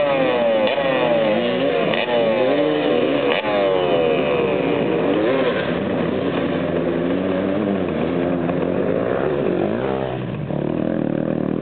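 Enduro motorcycle engines revving hard on a forest climb. In the first few seconds the engine note keeps jumping up and falling away, and after that it wavers up and down.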